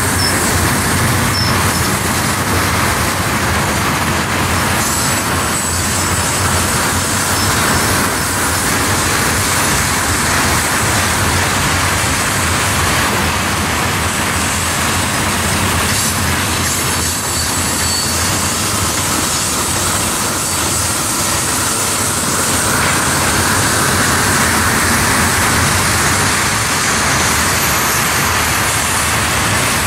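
Freight train of tank cars rolling steadily past, its wheels rumbling and clattering on the rail, with a brief high wheel squeal near the start.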